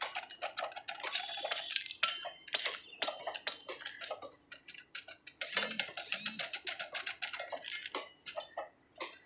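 Rapid, irregular metallic clicking and clinking from hand tools and a steel clamping frame being worked on a cut railway rail.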